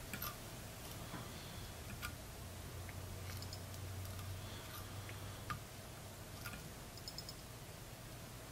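Faint, scattered small clicks and ticks of fly tying: thread being wrapped from a bobbin holder around a hook in a vise, lashing dumbbell eyes onto the shank.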